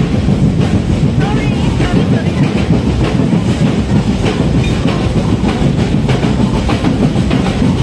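Loud festival street-dance drumming: a percussion band keeps a dense, driving beat for the dancers, with crowd voices mixed in.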